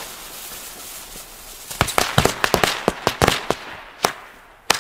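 Two jumping-jack firecrackers ("Frösche") from Weco's Fire Fantasy assortment going off together. A hissing spray of sparks comes first, then from about two seconds in a rapid string of sharp bangs, and two more single bangs near the end.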